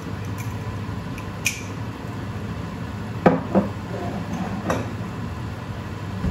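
Four knocks and clinks of kitchenware, the loudest about three seconds in, over a steady low hum.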